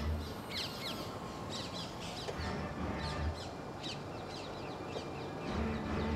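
Birds calling: many quick, falling chirps overlapping one another, over a low hum that swells three times.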